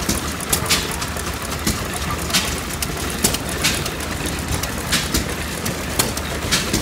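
1923 International Harvester McCormick-Deering 1.5 HP hit-and-miss engine running and belt-driving a water pump. Water gushes steadily into a metal trough, and sharp clacks come at irregular intervals.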